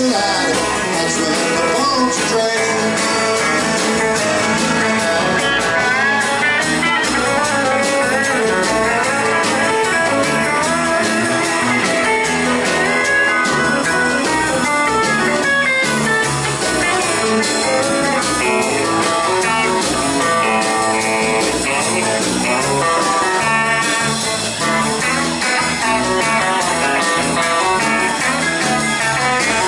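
Live country-rock band playing an instrumental break: electric guitar lead lines over rhythm guitar, bass guitar and drums, at a steady loud level.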